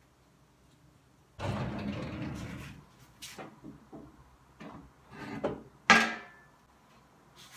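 Kitchen handling sounds at an electric oven: about a second of rustling and scraping, then light knocks and a sharp metallic clunk with a brief ring about six seconds in, as the oven door is opened.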